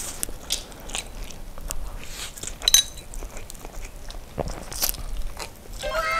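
Close-miked slurping and chewing of a mouthful of instant noodles, with irregular wet smacks and clicks. Just before the end, a musical sound effect of several falling tones begins.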